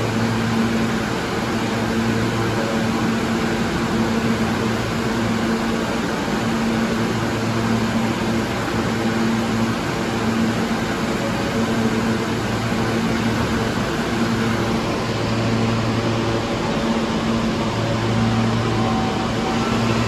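Steady hum of air-handling machinery, such as fans or air conditioning, with a low electrical hum that swells and fades every few seconds.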